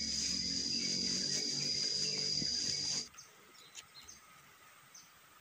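Loud, steady high-pitched drone of insects that cuts off abruptly about three seconds in. What follows is a much quieter background with a few faint, short chirps.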